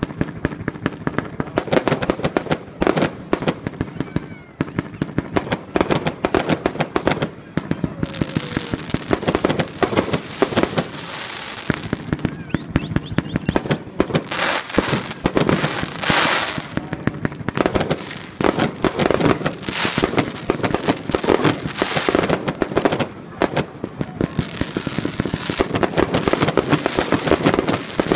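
Fireworks and firecrackers going off in a rapid, unbroken string of bangs, with stretches of crackling hiss laid over them about eight, fourteen and twenty-four seconds in.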